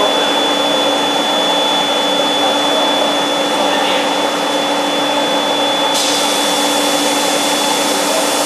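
Vacuum tube lifter's blower running steadily: a loud rush of air with a steady hum and a thin high whine. The hiss turns brighter about six seconds in.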